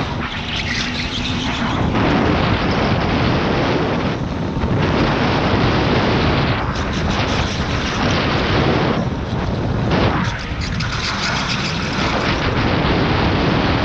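Rushing wind and tyre noise on the camera microphone of an electric go-kart driven at speed, with no engine note, swelling and dipping through the corners.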